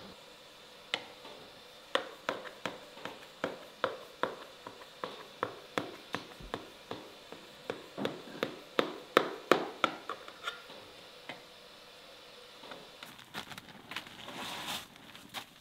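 A run of sharp knocks, about three a second, growing louder toward the middle and stopping about ten seconds in. Soft rustling follows near the end.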